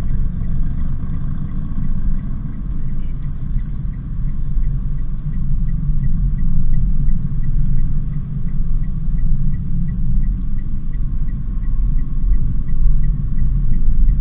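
Daihatsu Sigra on the move: a steady, loud, low rumble of road and engine noise. A faint, even ticking runs about twice a second.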